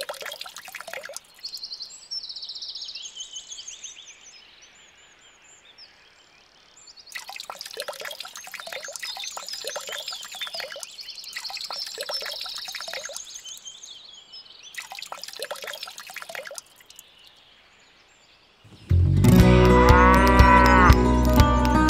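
A halved orange squeezed by hand, its juice squelching and dripping into a small clay pot, with faint high chirps in the background. About nineteen seconds in, loud music comes in.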